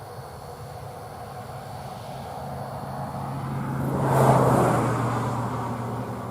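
A John Deere tractor driving past close by: the engine's steady hum and rushing noise grow louder, peak about four seconds in, then fade.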